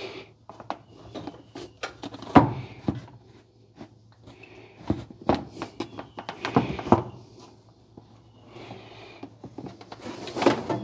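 Plastic radiator fan shroud being worked into place in the engine bay, knocking and scraping against the radiator support and sheet metal in a string of irregular clunks and rattles, the loudest about two seconds in.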